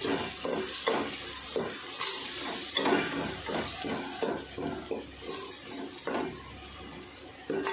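A steel spoon stirring and scraping spice powders into an onion-tomato base frying in oil in an aluminium pot, with repeated scraping strokes over a steady sizzle.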